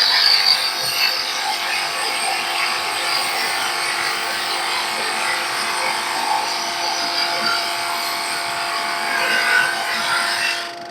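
Charnwood DS16/32 drum sander running, its 1100-watt motor giving a steady hum under an even hiss from the spinning sanding drum.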